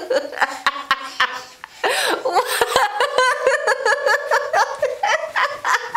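High-pitched laughing in quick, repeated bursts, with a brief break about a second and a half in.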